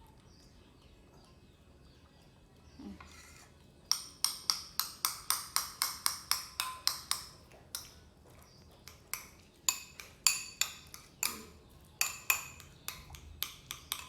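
A spoon tapping against a dish. About four seconds in comes a quick, even run of sharp taps, about four a second, followed by scattered single taps.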